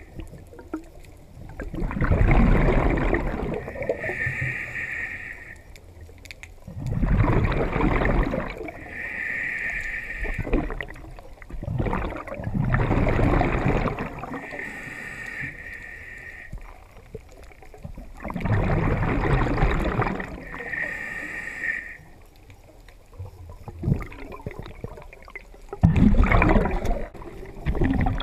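Scuba diver breathing through a regulator underwater: five bubbling rushes of exhaled bubbles, each followed by a shorter hissing inhale, in a slow cycle of about five to six seconds.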